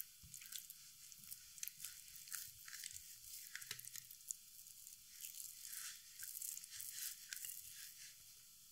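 Hands pressing, rubbing and pulling at the skin of a raw whole goose: many short, irregular sticky clicks and wet smacks of raw skin under the fingers.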